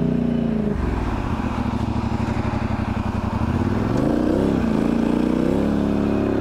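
Polaris Sportsman 1000 XP ATV's twin-cylinder engine running under way. The revs drop off the throttle just under a second in and stay low for a few seconds, then climb again about four seconds in and hold.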